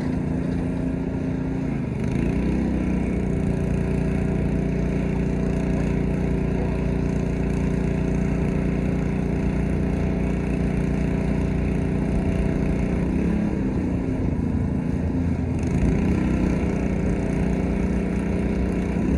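Small gasoline engine of a pressure washer running steadily, its speed shifting briefly about two seconds in and a couple of times in the last third.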